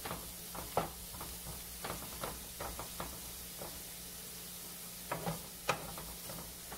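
Wooden spatula scraping and tapping in a nonstick frying pan as pieces of comb tooth mushroom are stirred in butter, over a faint sizzle. The strokes are irregular, with a sharper knock under a second in and a couple more around five to six seconds in.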